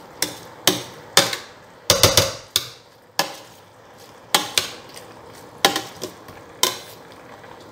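A slotted metal spoon stirring diced zucchini, carrot and onion in a stainless steel pot, knocking against the pot in about ten sharp, irregularly spaced clinks.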